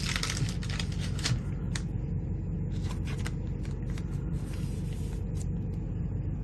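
Trading cards being handled and slid against one another, with scattered soft clicks and rustles that are busiest in the first second or so, over a steady low hum.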